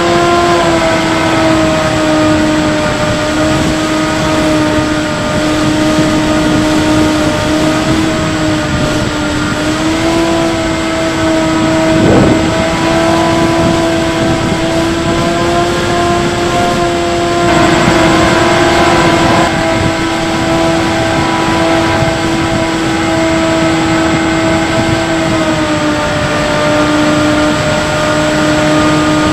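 Bixler 3 RC plane's electric pusher motor and propeller running steadily in flight, heard from a camera mounted on the plane, with rushing air noise; the whine shifts down a little in pitch now and then as the throttle changes. A brief louder rush of air comes a little past the middle.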